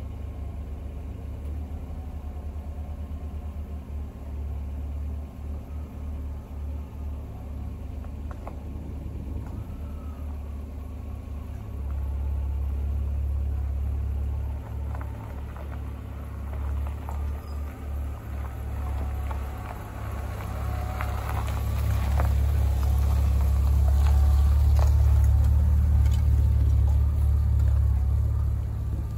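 A car on the move: a steady low road rumble that grows louder in the last third.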